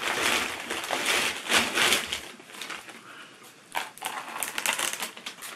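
Thin plastic carrier bag rustling and crinkling as hands rummage inside it. It is loud and dense for about the first two seconds, then dies down to lighter, scattered crackles.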